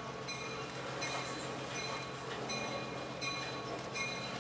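EMD SW1200 diesel switcher moving slowly with a boxcar, its engine running with a steady low drone. Wheel squeal on the curved track comes and goes about once a second.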